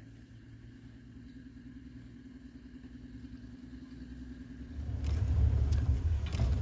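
Safari game-drive vehicle's engine running with a steady low hum, then a much louder low engine rumble starting suddenly about five seconds in.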